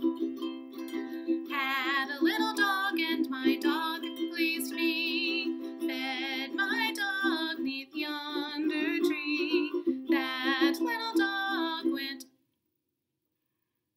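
A ukulele strummed steadily, with a woman singing a children's song over it in a small room. Both cut off abruptly about two seconds before the end, leaving silence.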